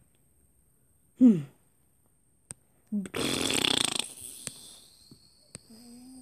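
A voice making sounds rather than words: a short falling cry about a second in, then a loud breathy hiss lasting about a second that fades away, and a short low hum near the end. A few light clicks fall in between.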